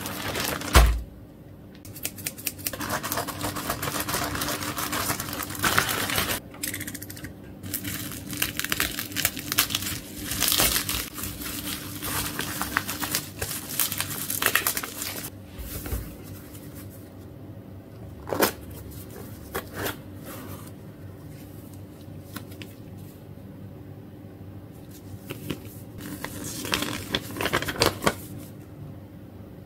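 Plastic bubble wrap crinkling and crackling as it is pulled off a small cardboard box by hand, in dense runs of crackles through the first half. Then sparser handling noises with a few sharp clicks, and another run of crinkling near the end.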